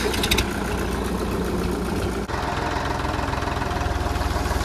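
Diesel tractor engines running: first a Kubota MU4501, then, after a cut a little over two seconds in, a Swaraj 963 FE idling with a rapid, even beat.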